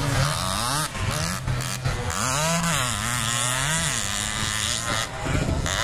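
Motocross dirt bike engines racing on a dirt track. Their pitch climbs and drops again and again as the riders open and close the throttle through the course.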